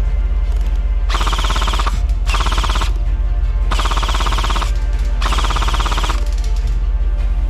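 Airsoft gun fired on full auto in four bursts of under a second to about a second each, over a steady low drone.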